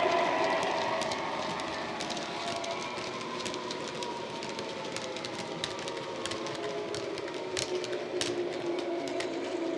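Model freight wagons clicking and rattling over the track joints as a Class 66 diesel's DCC sound file, an EMD two-stroke engine played through the locomotive's small speaker, fades away within the first couple of seconds. The clicks come irregularly and grow more frequent near the end.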